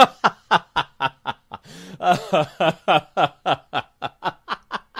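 A person laughing in quick, high-pitched bursts, about four a second, with a short break near the two-second mark.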